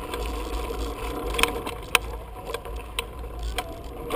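Wind rumbling on the microphone of a camera riding along on a bicycle over a bumpy dirt track, with about five sharp clicks and rattles from the bike as it jolts over the bumps.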